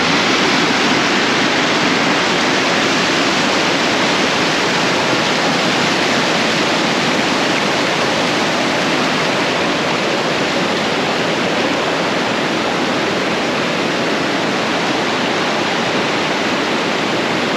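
A waterfall's falling water, heard close up as a loud, steady, unbroken rush.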